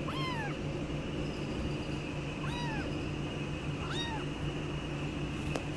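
Calico kitten meowing three times, short high meows that rise and fall in pitch, over a steady background hum. A single sharp click near the end.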